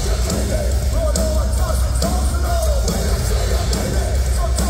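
Hardcore band playing loud and live: heavy guitars and bass over pounding drums with regular cymbal hits, and shouted vocals on top.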